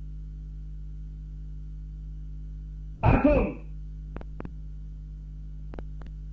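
A steady low hum runs underneath. About three seconds in there is one short, loud shout. Two pairs of sharp clicks follow, a quarter second apart within each pair, as the soldiers ready their rifles.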